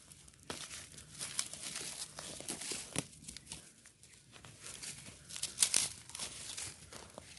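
Dry leaf litter rustling and crackling in irregular bursts, with a few sharp snaps, loudest a little past halfway, as the soil around a young tree's roots is dug out with a knife.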